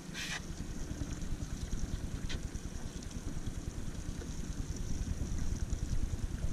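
Wind buffeting the microphone on an open boat, a steady low fluctuating rumble, with a short hiss right at the start and a faint tick about two seconds in.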